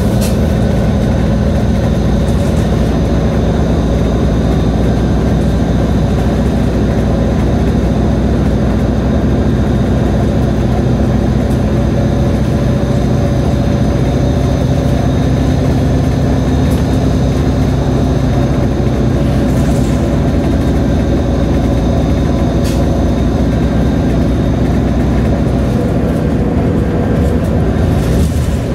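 Nova Bus LFS city bus under way: a steady low engine drone with road noise, and a few short clicks or rattles in the last third.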